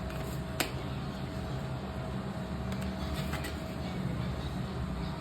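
Steady low background hum, with one sharp click just over half a second in and a few faint ticks after it.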